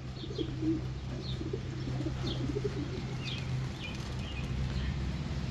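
Pigeons cooing softly, low wavering murmurs, with a few faint high chirps from other small birds over a steady low hum.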